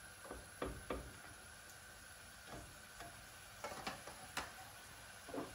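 Kitchen tongs clicking and tapping against a cast-iron skillet, about half a dozen scattered taps, as shrimp are put back into the pan. Beneath them, the broccoli and shrimp in honey-soy sauce sizzle faintly.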